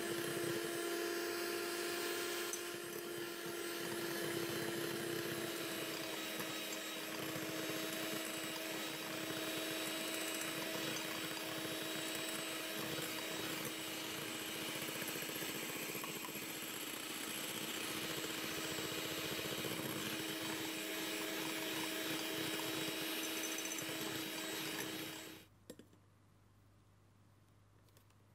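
Electric hand mixer running steadily at high speed, its beaters whipping egg whites into stiff meringue in a glass bowl. It stops abruptly near the end.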